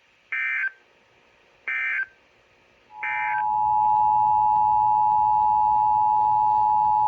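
Emergency Alert System activation: three short bursts of SAME header data tones about a second and a half apart, then, about three seconds in, the steady two-tone EAS attention signal (853 Hz and 960 Hz sounded together).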